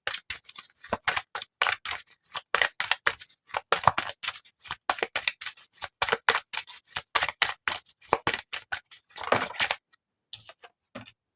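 A tarot deck being shuffled by hand: a rapid, uneven run of card clicks and slaps, several a second, that ends with a short rustle about ten seconds in.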